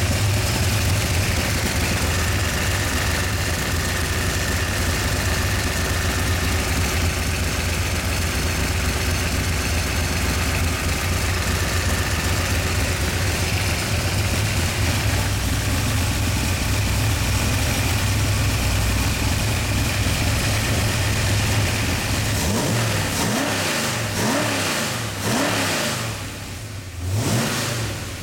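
Performance V8 engine running steadily on a run stand. For the last few seconds it is blipped, its pitch sweeping up and down, with a brief fall-off in level just before the end.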